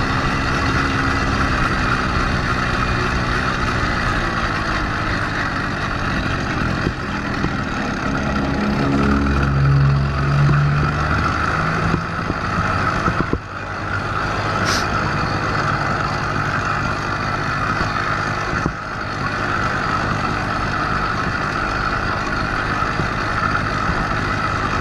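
A motorized bicycle's small engine running steadily at riding speed, a continuous buzz. A deeper hum swells briefly about ten seconds in, and the sound dips for a moment twice later on.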